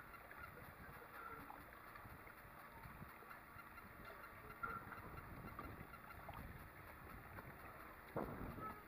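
Quiet ambience on calm water from a small boat, with a few faint short high chirps and a soft knock near the end.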